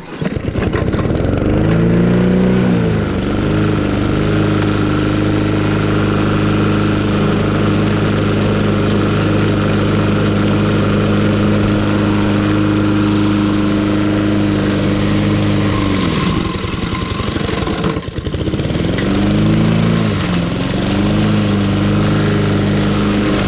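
An engine comes up to speed at the start and runs steadily. About sixteen seconds in it slows down, then speeds back up and settles again.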